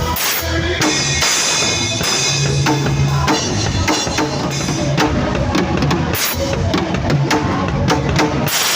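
Drum kit played along with a song: kick, snare and frequent cymbal hits over sustained bass notes.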